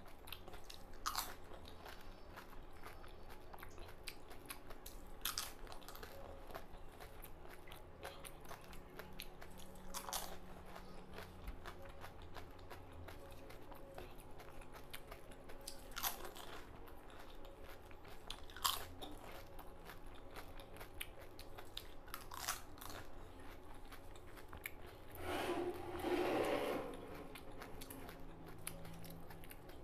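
Mouth noise from eating panipuri: crisp hollow puris filled with spicy water crunch as they are bitten, about six sharp separate crunches with quiet chewing between. Near the end there is a louder stretch of mouth noise lasting about two seconds.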